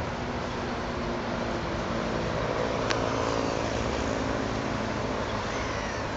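A motor vehicle engine running steadily under a constant rushing outdoor noise, with one sharp click about three seconds in.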